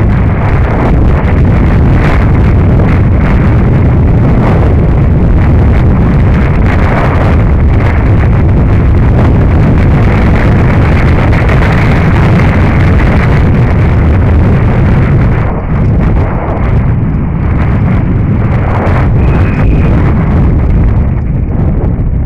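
Wind rushing over a helmet-mounted camera's microphone at downhill speed, loud and steady, with the RAM AM.TWO downhill mountain bike's tyres and parts knocking and rattling over rough dirt and rocks.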